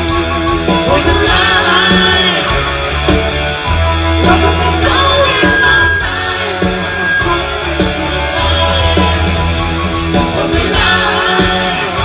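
Rock band playing a song, a singer's voice over drums with cymbals and a heavy bass line.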